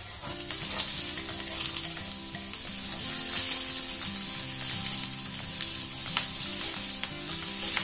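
Chopped onions and garlic sizzling in hot olive oil in a nonstick frying pan over a high flame; the sizzle jumps up just after the start as the onions go into the oil. A wooden spatula stirs them, scraping and clicking against the pan.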